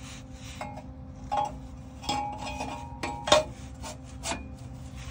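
Steel exhaust pipe section being handled in place under a car: several short metal scrapes and knocks, some with a brief ring, as the pipe is fitted and turned.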